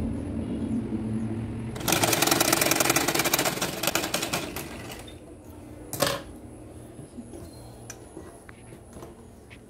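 Old black sewing machine stitching: a fast, even clatter of the needle mechanism that starts about two seconds in and runs for about three seconds before stopping. A brief knock or rustle follows about six seconds in.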